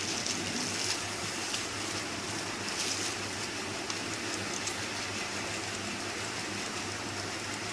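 Steady hiss of room background noise with a constant low hum, and a few faint brief handling sounds.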